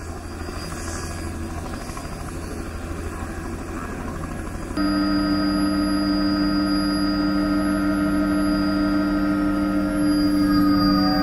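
Bell 206B JetRanger III helicopter running on the ground. For the first five seconds it is a rumble heard from outside. It then cuts abruptly to the sound inside the cabin: the turbine's steady, louder whine with several held tones, growing a little louder near the end.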